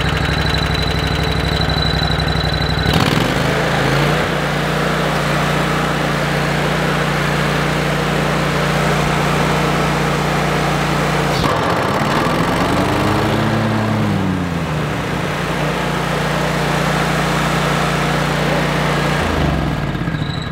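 Toro stand-on mower engine running with the MultiForce leaf bagger fitted, just after starting; about three seconds in it settles into a steadier, deeper run. Once around the middle the pitch rises and falls, and near the end it winds down and stops.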